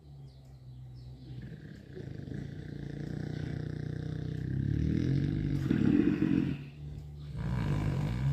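Sleeping Mangalitza gilts snoring. The low snore grows louder over several seconds, stops briefly near the end, then picks up again.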